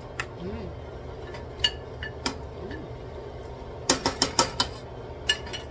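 Wooden spatula clacking against a metal cooking pot while stirring sautéed cabbage: a few scattered taps, then a quick run of about six clacks about four seconds in, and one more near the end.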